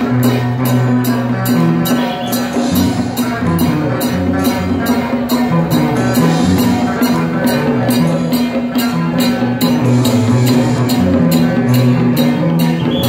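Loud music with a fast, even percussive beat over a sustained low note and a stepping bass line.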